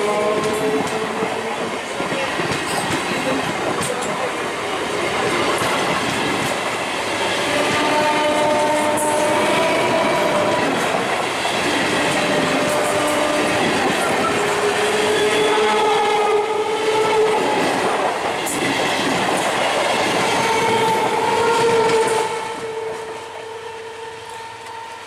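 Vintage electric multiple unit (EMU) local train running close by, its wheels clattering and clicking over the track while a motor whine climbs in short steps. Near the end the noise drops suddenly, leaving a quieter sound with a steady tone.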